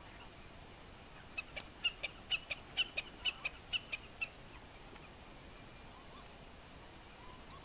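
Common snipe giving a rapid series of about a dozen sharp ticking calls, roughly four a second, starting about a second and a half in and stopping after about three seconds.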